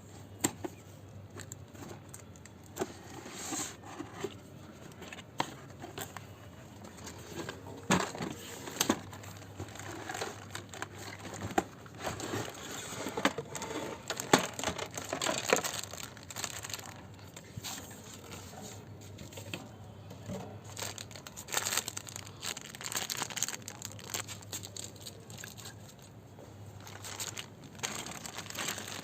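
Toy packaging being opened and handled: plastic wrap and cardboard crinkling and tearing in irregular bursts, with scattered sharp clicks and knocks of small parts.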